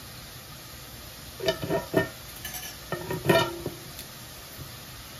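Kitchen utensils clinking and knocking: two short clusters of taps with a brief ring, about a second and a half in and again around three seconds in.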